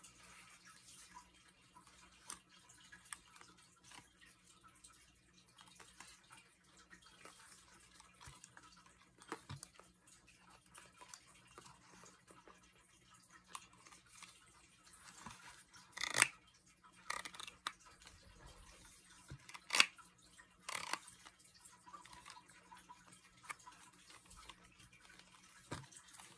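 Handling noise from over-ear headphones being lifted out of their fabric-covered hard carrying case: faint rustling with scattered light clicks and knocks, a few louder clicks about two-thirds of the way through.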